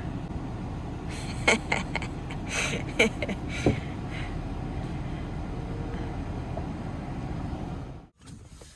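Van window glass being wiped from the outside: a few short squeaks and knocks over a steady low rumble, which drops away abruptly near the end.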